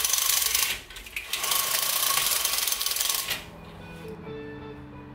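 Two loud bursts of fast, harsh rattling noise, each about two seconds long, with a short break between them; about three and a half seconds in, guitar music takes over.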